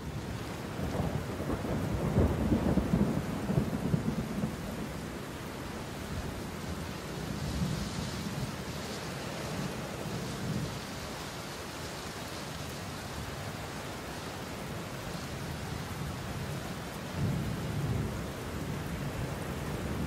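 Steady rain with rolling thunder, the deepest rumbles swelling in the first few seconds, again around the middle and near the end.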